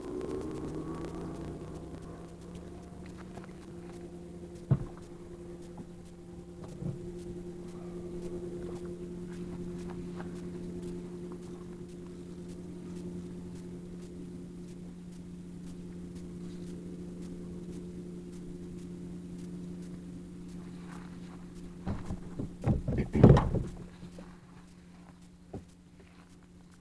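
A steady engine drone with a low, even pitch, fading out near the end. Sharp knocks sound about five and seven seconds in, and a louder cluster of knocks and thumps comes just before the drone fades.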